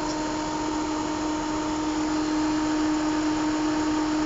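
Turbocharged Chevrolet Captiva engine running under an open hood, a steady whirring drone with a constant hum. The engine is misfiring and shaking, which the mechanic puts down to the spark plugs.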